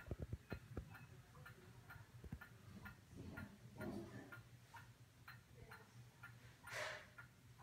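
Faint, regular ticking, about two ticks a second, over a low steady hum, with a few low knocks at the start and a brief rustle near the end.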